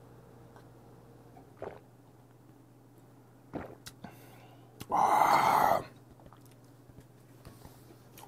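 A man lets out a loud, breathy 'kyaa' exhale lasting about a second, midway through, after downing a shot of strong 17% makgeolli. A few faint clicks and a swallow come before it.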